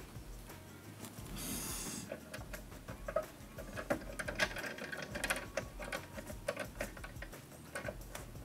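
Handling noise as the camera is repositioned: a brief rustle, then a run of small irregular clicks and taps.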